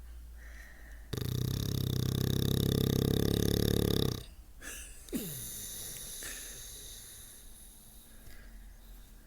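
Bulldog snoring: one loud, rattling snore of about three seconds, starting about a second in. It is followed by a short sound that drops in pitch, then a quieter hiss.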